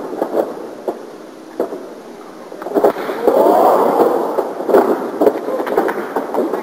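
Arena crowd noise with scattered sharp clicks, swelling into a louder stretch of crowd shouting about three seconds in, on worn, muffled tape audio.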